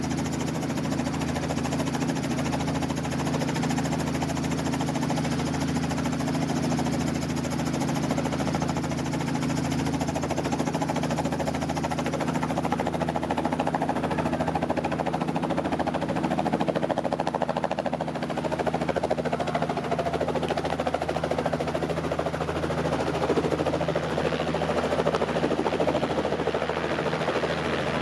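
Helicopter engine and rotors running: a steady mechanical drone with a slow, even pulse underneath.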